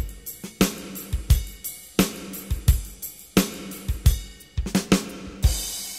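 Drum kit playing a steady beat, a strong hit about every 0.7 seconds with lighter hits between, ending in a cymbal crash near the end that rings out and fades: the drum outro of the soundtrack song.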